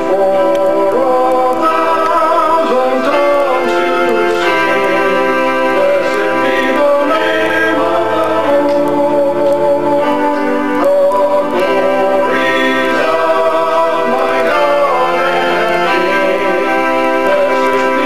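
A group of men singing a song together, accompanied by a keyboard holding sustained chords.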